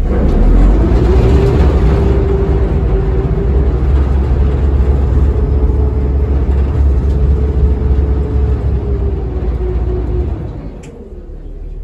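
Ferry engine running hard, with a whine that rises in pitch at the start and then holds steady, before the engine eases off and goes quieter about ten seconds in.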